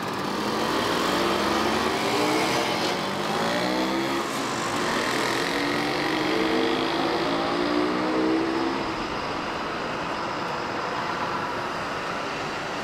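A motor vehicle's engine accelerating past on a city street, its note climbing twice, then fading back into steady traffic noise.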